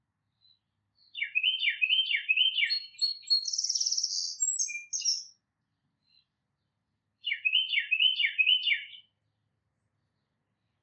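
Tufted titmouse singing: two phrases of about four repeated down-slurred whistled notes, one near the start and one again after several seconds. Between them comes a harsher, buzzy, higher call.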